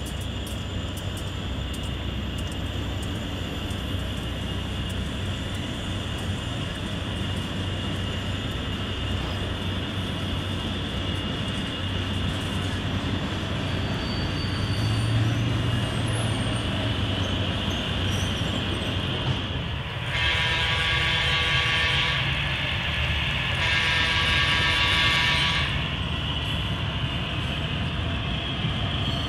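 HO-scale model train running on the layout: a steady rumble and hum of wheels and motors, with a thin high whine. A little over twenty seconds in come two horn blasts of about two seconds each, a couple of seconds apart.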